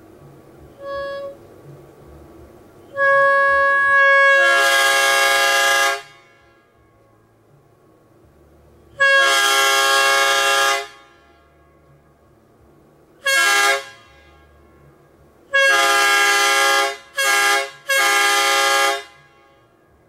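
Three-chime imitation K3LA train horn with aluminium drink-can diaphragms, blown on compressed air from a 3/8-inch line, with pressure starting at 115 PSI and ending at 90 PSI. It sounds a series of blasts with quiet gaps: a brief toot, a long blast that starts on a single note before the full chord comes in, another long blast, a short toot, and near the end a long, short, long pattern.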